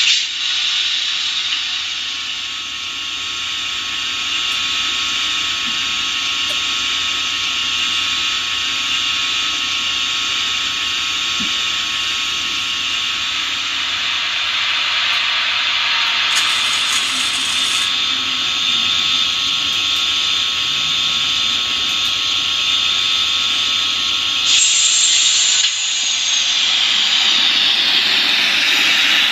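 Märklin E 69 model electric locomotive and its coaches running on the layout: a steady whine with a hiss of running noise. About 25 seconds in it becomes louder and brighter, then a high whine falls away near the end.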